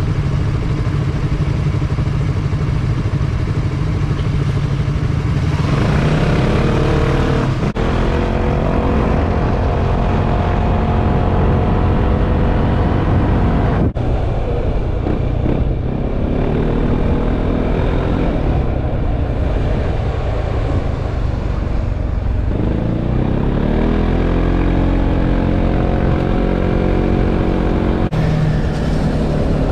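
Yamaha XMAX 300 scooter's single-cylinder engine idling while stopped, then rising in pitch as it pulls away about six seconds in. It rises again with a second acceleration later on.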